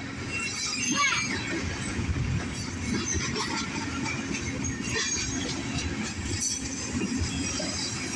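Freight train tank cars rolling past: a steady rumble of steel wheels on the rails.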